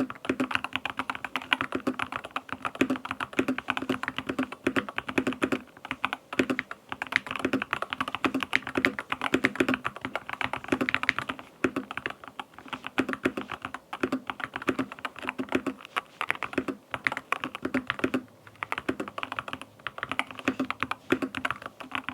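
Fast, continuous typing on a Keychron K2 HE keyboard with linear Hall Effect magnetic switches: a dense patter of key strikes with a few short pauses, stopping abruptly at the end.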